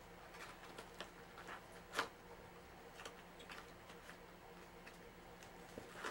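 Faint crinkling and clicking of plastic toy packaging being handled and pulled open, with one sharper click about two seconds in.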